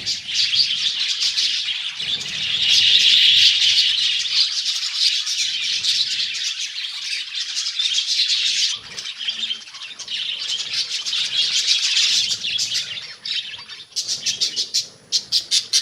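A flock of budgerigars chattering and chirping together, continuous and overlapping, with brief lulls about nine seconds in and near the end.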